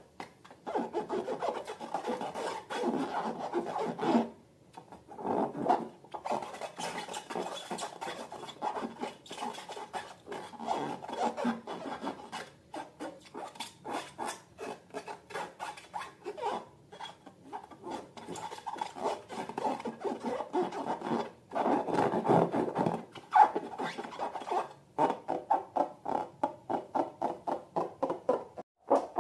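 Hands working slime and rubber balloons: rubbing, squeaking and squishing in a dense run of short strokes, settling into a quick, even train of strokes near the end.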